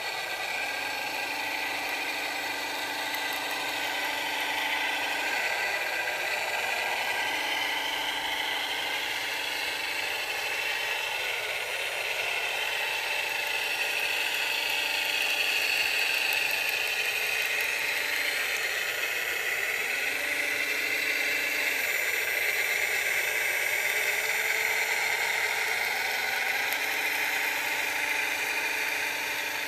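Radio-controlled scale-model wheel loader's electric motors whirring as it drives and turns, a whine rising and falling with its movement, and a steady low hum that switches on and off several times.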